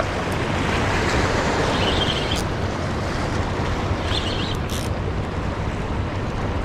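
Steady rush of wind on the microphone over sea water washing against a seawall. About two and four seconds in come short high-pitched bursts, each followed by a faint click.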